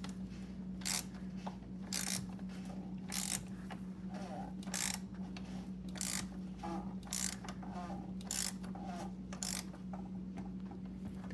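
Ratchet clicking as it turns a 27mm socket, gently snugging down the plastic oil filter housing cap: a sharp click about every half to one second on each back-swing, over a steady low hum.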